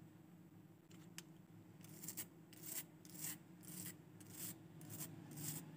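A brush scrubbing a mobile phone's circuit board to clean the water-damaged area: a run of faint, quick rubbing strokes, about two a second, starting about two seconds in.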